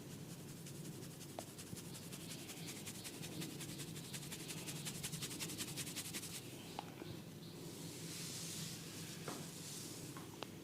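Faint, fast, even scratching strokes on hair and scalp during a head massage, several a second, giving way after about six seconds to a softer rubbing, with a few light ticks near the end.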